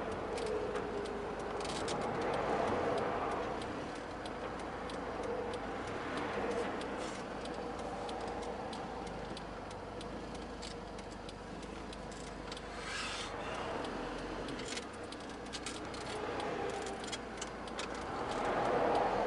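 Vehicle engine running, heard from inside the cab as it reverses slowly, with a steady hum and scattered light ticks and clicks.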